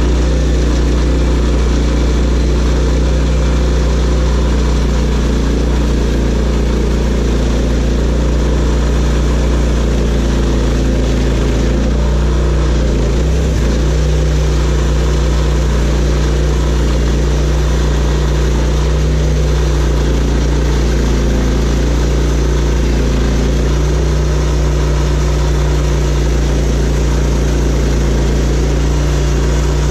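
Portable bandsaw mill's engine running steadily, a constant drone with no change in speed.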